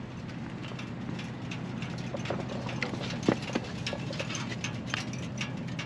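Hot motorcycle engine ticking as its metal cools after a ride and shutdown: light, irregular ticks and clicks over a steady low hum.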